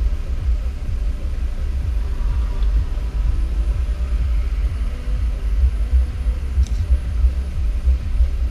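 Uneven low rumble inside a car's cabin as the car sits stopped with its engine idling.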